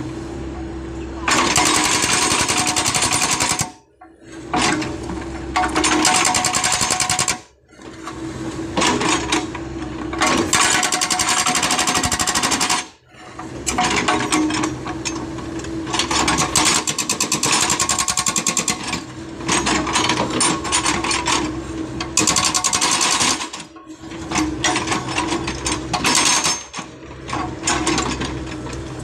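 Hydraulic breaker hammer on a backhoe excavator pounding hard adobe rock in rapid-fire bursts of a few seconds, stopping briefly between them, with the excavator's engine running steadily underneath.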